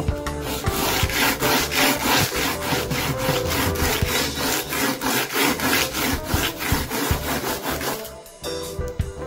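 Stanley No. 4 plane blade in a honing guide rubbed back and forth on abrasive paper over glass: a rapid, even scraping rasp of quick strokes, grinding a fresh cutting edge until a burr forms. The strokes stop shortly before the end.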